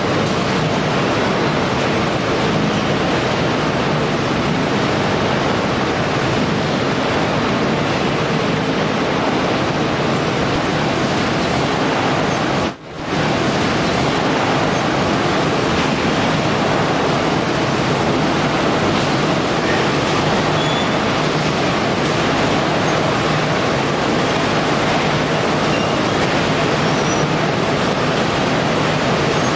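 Steady, loud noise of a Tyrannosaurus waste shredding and sorting line running, heard at the heavy-fraction discharge of its air classifier. The noise drops out for a moment about 13 seconds in.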